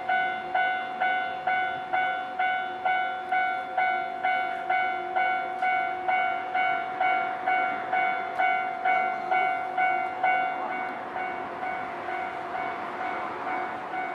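Japanese level-crossing warning bell ringing its repeated clanging tone about twice a second. From about ten seconds in, the running noise of an approaching Nankai electric train rises underneath it.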